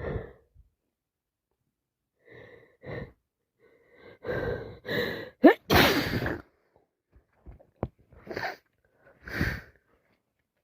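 A person with a head cold sneezing: short hitching breaths and a sharply rising 'ah' build to one loud sneeze about six seconds in, followed by a couple of shorter bursts near the end.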